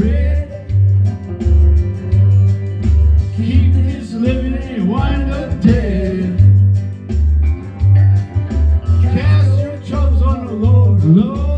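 A man singing a country rock song into a microphone over recorded backing music with guitar, his voice coming and going in phrases over a steady, pulsing bass beat.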